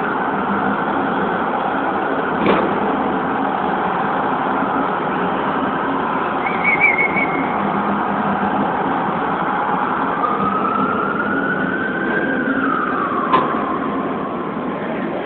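Hall crowd noise during a wrestling bout, with two sharp smacks from the ring, about two and a half seconds in and near the end, over a high wavering tone that rises and falls.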